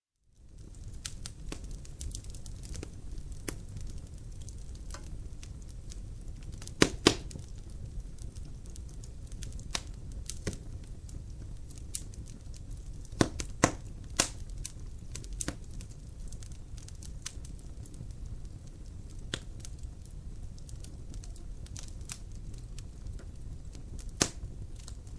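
Wood fire crackling in a fireplace: a steady low rumble of flames with scattered sharp pops and snaps. The loudest pops are a close pair about seven seconds in and a few around thirteen to fourteen seconds. The sound comes in from silence right at the start.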